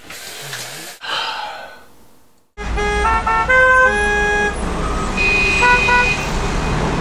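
Kitchen tap running water into a steel sink for about two and a half seconds. Then a sudden cut to loud city street traffic: several car horns honking over one another at different pitches, over a low traffic rumble.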